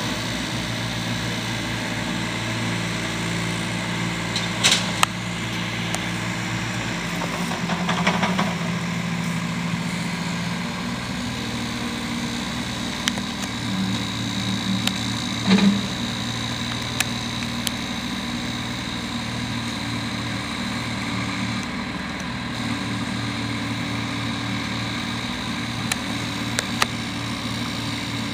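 An engine running steadily at idle, a low hum whose lowest part drops away about seven seconds in, with a few brief knocks.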